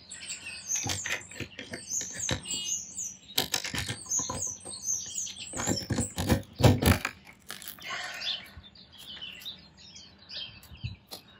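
Knocks and clatter of a chicken coop's nest box being opened and checked, loudest about six to seven seconds in, with short high bird chirps repeating through the first half.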